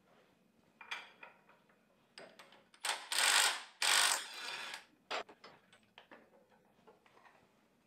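Cordless impact wrench undoing the crankshaft pulley bolt on a Renault R9M diesel engine, running in two bursts of about a second each. Around them come sharp clicks and clatter of the socket and the pulley being handled.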